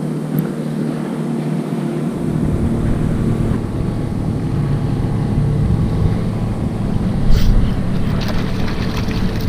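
Wind buffeting the microphone over a steady wash of water, the low rumble growing stronger about two seconds in. There is a short sharp knock about seven seconds in.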